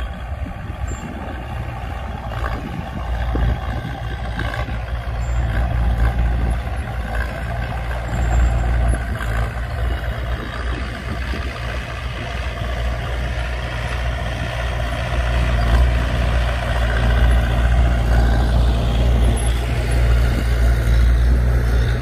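Diesel engines of mini crawler bulldozers running steadily under load as they push sand. The sound grows louder over the second half.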